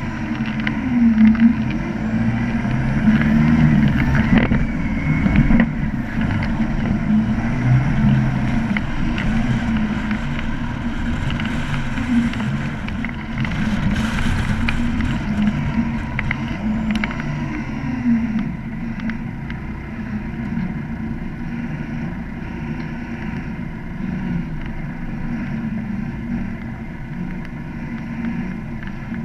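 Off-road vehicle's engine running at low speed over rough ground, its pitch rising and falling with the throttle, with occasional knocks.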